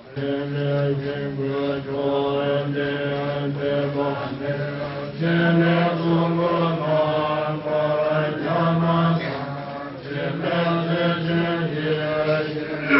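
Tibetan Buddhist long-life prayer chanted slowly to a melody, in long held notes. The pitch steps up about five seconds in.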